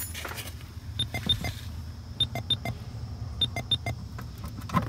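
Vehicle warning chime: short electronic beeps in quick groups, repeating about every 1.2 seconds. Light clicks and handling as the OBD scanner plug is worked out of the port under the dash.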